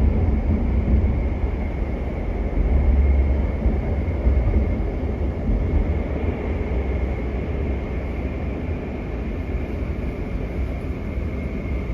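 Inside a GTX-A express train car running on the line, a heavy low rumble with a faint steady high tone. The rumble eases slightly toward the end.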